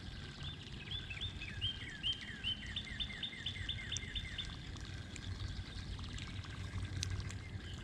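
A songbird singing a run of about fifteen quick, repeated down-slurred notes that speed up and stop about four seconds in, over a steady low background rush.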